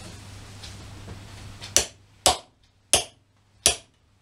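Hammer blows driving a lathe spur drive centre into the end of a pear-wood turning blank: four sharp knocks about two-thirds of a second apart, starting a little under two seconds in.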